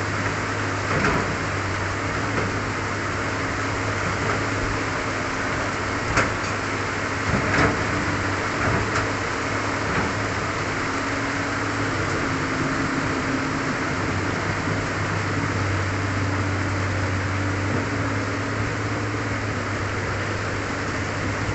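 Heavy tropical rain pouring down in a steady hiss, with a few sharp knocks and a low steady hum underneath.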